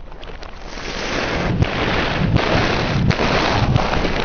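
A car tyre rolling slowly over a row of plastic snack bags and loose crisps on asphalt: crinkling plastic and crunching snacks that grow louder about a second in, with a few sharp cracks.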